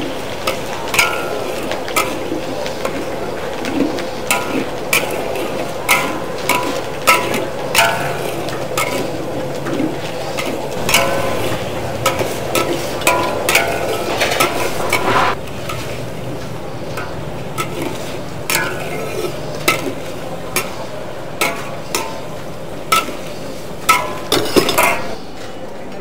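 Sauce of chili and fermented black beans sizzling in a wok while a metal spatula stirs it, clinking and scraping against the pan once or twice a second. The sizzle drops a little about halfway through.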